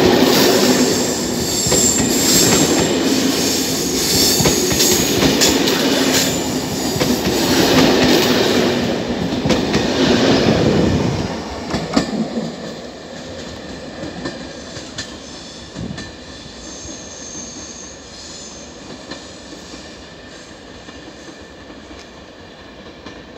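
Corail passenger coaches rolling past at low speed, wheels clattering on the track with high wheel squeals. About eleven seconds in, the sound drops sharply as the last coach goes by, then fades into the distance with a few scattered clacks.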